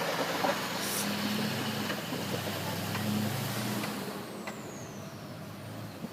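A passing motor vehicle's engine running with a steady hum that fades away over the last few seconds.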